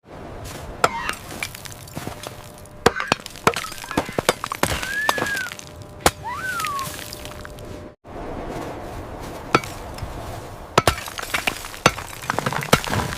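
Ice cracking and being chipped: a string of sharp cracks and knocks over a faint hiss, with two short high squeaks that fall in pitch about five and six seconds in. The sound cuts out for a moment about eight seconds in, then the cracking and chipping goes on.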